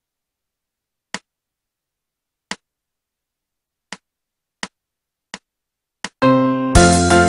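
Count-in clicks for a recorder play-along backing track: two slow clicks, then four twice as fast. After the last click a held chord comes in and, about half a second later, the full accompaniment starts with a steady beat.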